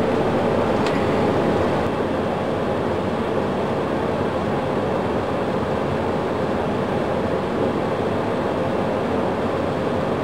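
Steady roar of cockpit and engine noise from a Boeing 737 with one engine running at idle, with a faint click about a second in. The sound does not rise or whine up, because the start valve of the engine being started has not opened and that engine is not turning.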